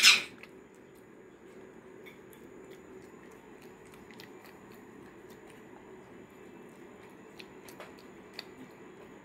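Pet macaque chewing a mouthful of porridge: faint, scattered wet mouth clicks and smacks. A short loud rush of noise right at the start is the loudest sound.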